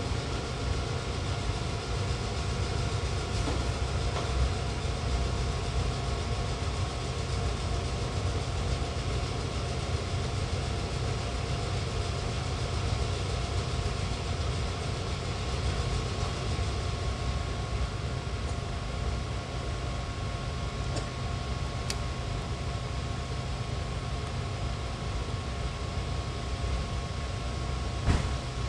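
JNR Class EF58 electric locomotive standing still, humming steadily with a low rumble and two steady tones from its onboard equipment. A short knock comes near the end.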